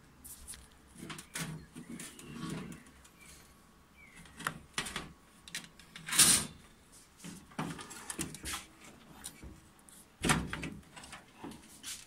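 Handling noises: scattered knocks, clicks and rubs of hands and a hand-held camera against the K40 laser cutter's housing and control panel, with the loudest knocks about six and about ten seconds in.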